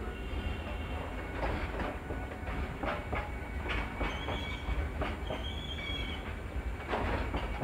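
BOXN open freight wagons rolling past with a steady low rumble and wheels clacking over the rail joints. A high wheel squeal comes twice, about four and five seconds in.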